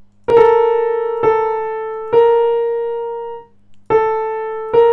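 Piano tones from a tone-deafness hearing test: a short phrase of three notes about a second apart, then after a pause a second phrase begins. The listener has to judge whether the two phrases are the same or different.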